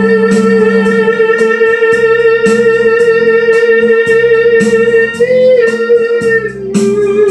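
Music: a man sings one long held high note over a guitar backing track with a steady beat. About five seconds in the note lifts briefly, then settles lower.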